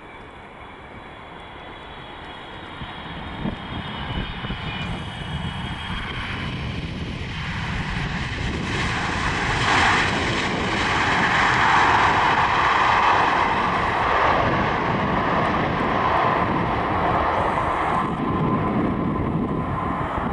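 Boeing 777 freighter's jet engines during its landing and rollout: an engine whine and rumble that grow steadily louder, loudest from about ten seconds in, then ease a little.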